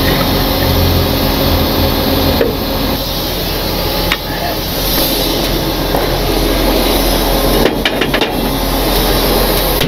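Heavy wrecker's engine running, with a humming hydraulic load for the first two seconds or so that then drops away while the engine carries on. A click about four seconds in, and a few quick metal clanks near the end as rigging gear is handled in the steel toolbox.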